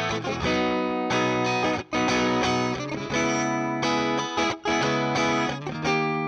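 Electric guitar played through a Zoom G2 Four multi-effects pedal's Fender Deluxe Reverb amp simulator: chords ringing out and changing about once a second, with a couple of brief breaks between them.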